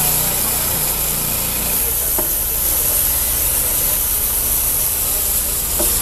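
Portable band sawmill running: a steady engine drone under a loud, even hiss from the band blade cutting through the log.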